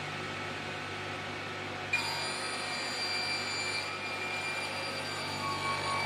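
CNC cutting machine with a round saw blade running with a steady hum; about two seconds in a high whine of several steady tones sets in suddenly as the saw side starts working.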